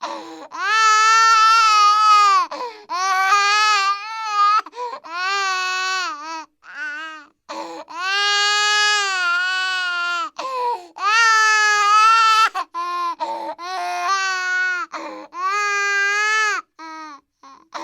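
A woman crying in a series of long, high, wavering wails, each lasting a second or two, with short breaks for breath between them.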